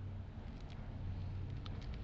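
Steady low machine hum with a few faint light clicks, about two-thirds of a second in and again near the end.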